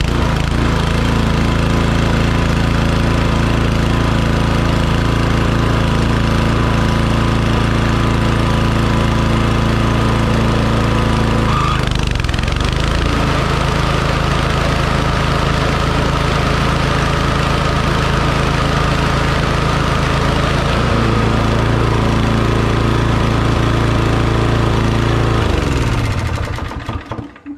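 Toro TimeMaster mower's 223cc OHV engine running with its timed twin blades spinning, shifting in tone about twelve seconds in and again about twenty-one seconds in, then shut off and winding down near the end. No blade strikes: the new pulley and reset belt timing are holding.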